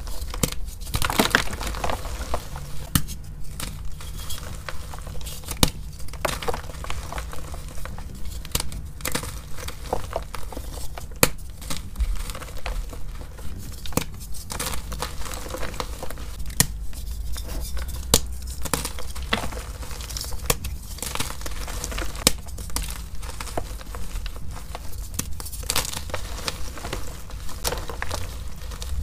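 Blocks of gym chalk crushed and crumbled by hand: a continuous dry crunching, with frequent sharp cracks as pieces break and crumbs fall into the powder.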